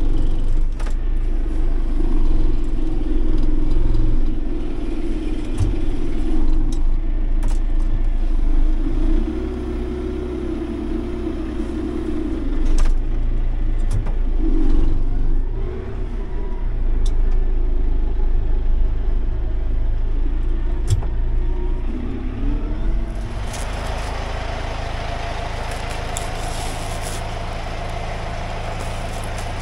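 John Deere tractor's diesel engine running, heard from inside the cab, its pitch shifting up and down as the front loader works. About 23 seconds in, the engine sound gives way to a steady hiss.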